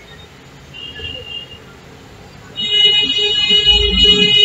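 A vehicle horn held in one long, steady, loud blast that starts a little past halfway through, with a low rumble beneath it toward the end.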